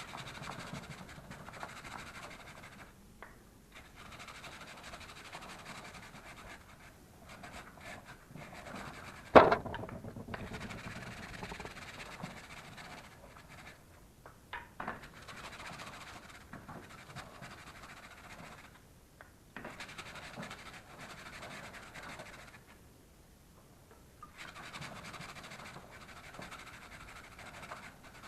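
Brush scrubbing a diesel-soaked motorcycle drive chain in stretches of a few seconds with short pauses, cleaning off the grime. A single sharp knock about nine seconds in is the loudest sound.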